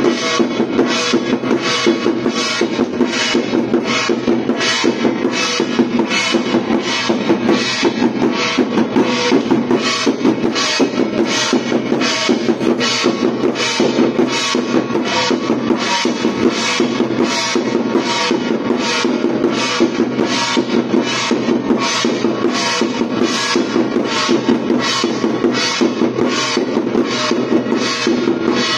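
Chinese temple-festival percussion: drum and cymbals beating a steady, unbroken rhythm of about two strokes a second.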